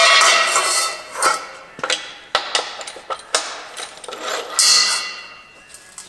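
Steel frame clanging and ringing as it is set down on a perforated steel welding table, then scattered metal knocks and clinks as it is shifted and a hold-down clamp is fitted into a table hole. The loudest, longest-ringing clang comes at the start, and a second ringing clang comes near the end.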